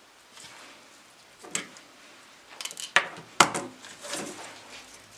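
Light knocks and rustling as cut flower stems and foliage are handled on a wooden tabletop: a few sharp knocks, the loudest about three and a half seconds in.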